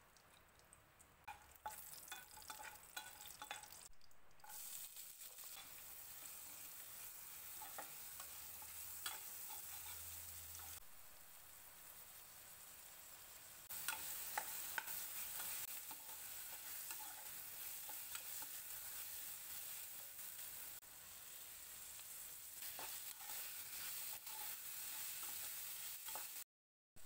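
Onion and tomato frying in oil in a kadai with a steady sizzle. A spatula scrapes and clicks against the pan as they are stirred.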